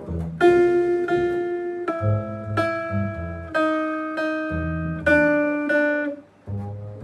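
Guitar playing a chord progression, a new chord struck about once a second, with its main voice stepping downward. Low bass notes sound underneath.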